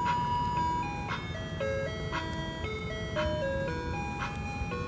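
Ice cream truck's electronic chime tune playing a simple melody of clean, stepped notes, with a low rumble underneath.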